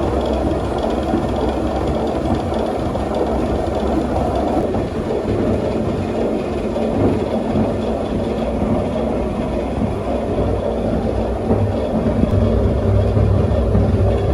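Old flour-mill machinery running steadily: a dense, continuous low mechanical rumble, with a deep hum that grows louder near the end.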